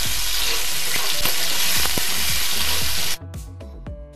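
Marinated soya chunks sizzling loudly in hot coconut oil in a pan, with a spoon stirring them. About three seconds in, the sizzling cuts off abruptly and background music takes over.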